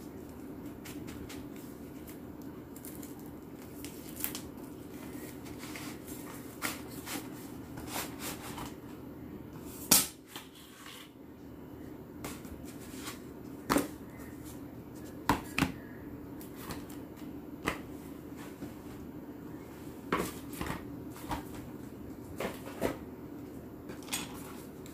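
Hands handling a cardboard album box and its paper contents: scattered taps, clicks and paper rustles, with one sharp snap about ten seconds in, over a steady low hum.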